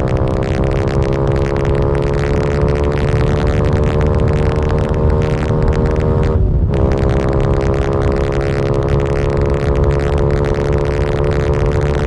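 Yamaha R125 motorcycle engine with a Malossi 180 big-bore kit, heard onboard while riding, running at a steady high pitch. About six and a half seconds in, the revs dip sharply and pick up again, as at a gear change.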